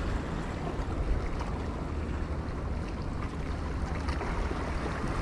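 Steady wash of low sea waves against breakwater rocks, with wind rumbling on the microphone.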